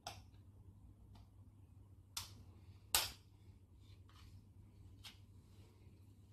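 A few light metallic clicks of a cut lid against the rim of an opened tin of pineapple chunks as the lid is pressed down and the can tilted to drain off the syrup; the two loudest come about two and three seconds in.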